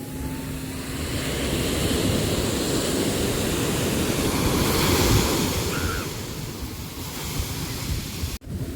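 Sea waves surging in, the noise of the water swelling to a peak about five seconds in and then easing back; the sound drops out for an instant near the end.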